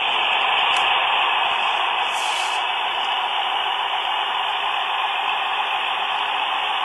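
Steady, even hiss like static, with a faint click under a second in.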